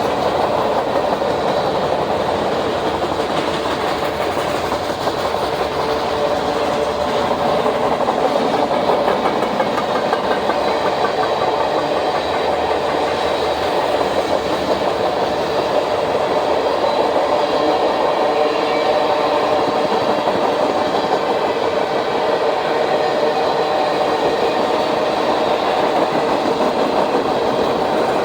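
Norfolk Southern freight train rolling past, a steady loud run of railcar wheels on the track.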